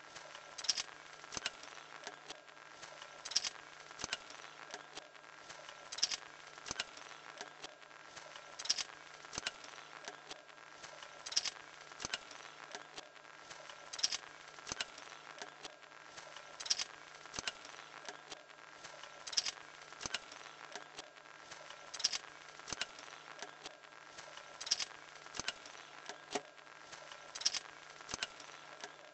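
Small electric motor driving the wooden stick linkage of a pencil drawing machine. A faint steady hum runs under pairs of sharp clicks from the linkage, which repeat about every two and three-quarter seconds as the pencil arm swings back and forth.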